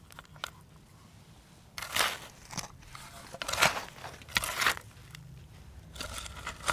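Plastic toy parts and packaging being handled during assembly: several short bursts of crackling and crunching.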